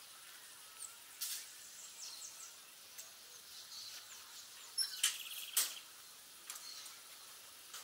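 Small birds chirping and calling, with a short rapid trill about five seconds in. A few sharp clicks stand out, the loudest around the same moment.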